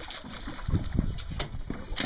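Boat deck noise: knocks and thuds over a steady low rumble of water and boat, with a couple of heavier thumps a little under a second in.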